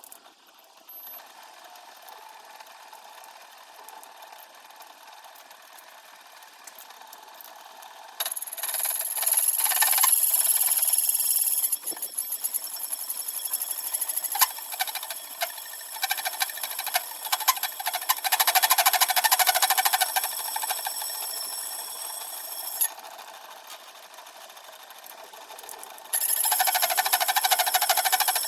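Metal being machined on a small workshop machine. A quieter running sound gives way about 8 seconds in to loud, scratchy cutting noise with rapid clicking. The cutting stops for a few seconds and starts again near the end.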